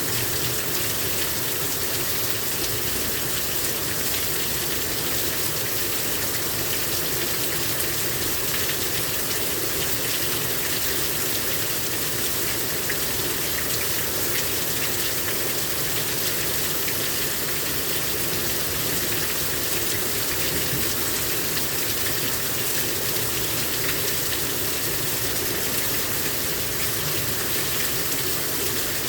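Heavy rain pouring down steadily, a dense even hiss of rain on surfaces with water gushing.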